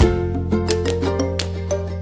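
Background music: an upbeat plucked-string tune, ukulele or guitar, over a steady bass note.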